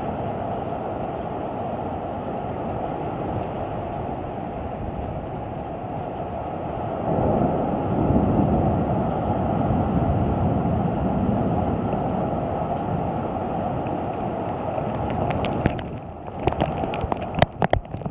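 Severe thunderstorm noise: a steady low roar of wind and heavy rain that swells about seven seconds in. Near the end it thins into a string of sharp clicks and pops.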